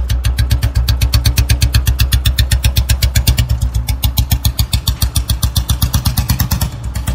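Royal Enfield motorcycle's single-cylinder four-stroke engine running at low revs close by, its exhaust beating out a fast, even train of pulses.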